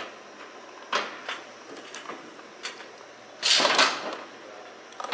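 Scattered clicks and knocks of cable connectors and mounting hardware being handled and unplugged, with a louder, half-second rattle about three and a half seconds in.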